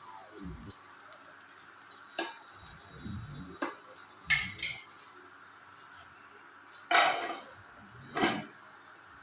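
A cooking spoon or spatula clinking and scraping against a pan as the parwal fry is stirred: several separate knocks and scrapes, the loudest about seven seconds in.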